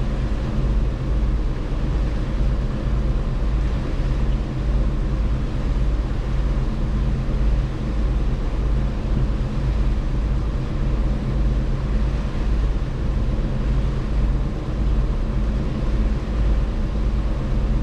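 Passenger ship under way: a steady low engine hum, with a throbbing pulse underneath and a haze of water and wind noise.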